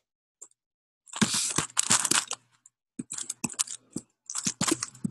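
Typing on a computer keyboard: a run of quick key clicks through the second half. Before it, about a second in, comes a loud rustle lasting about a second.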